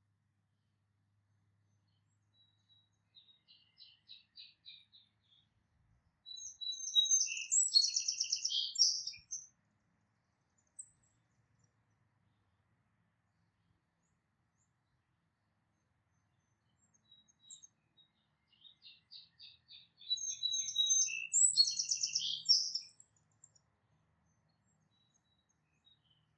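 A songbird singing two song phrases about 14 seconds apart. Each opens with a run of soft, quick, high notes and ends in a louder, jumbled burst of notes lasting about three seconds.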